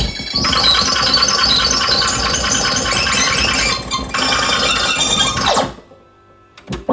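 Akai reel-to-reel tape deck fast-winding, with the recorded music on the tape coming through as a loud, high-pitched, sped-up chatter. About five and a half seconds in, the reels slow with a falling pitch and stop. After a short near-quiet pause comes a click as the function lever is switched.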